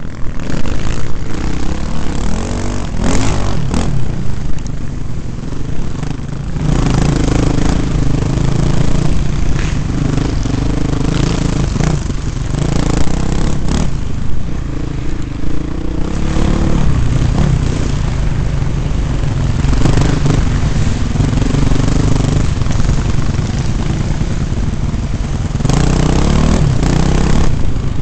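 Dirt bike engine heard from the rider's helmet, repeatedly revving up and easing off, with knocks and clatter from the rough trail.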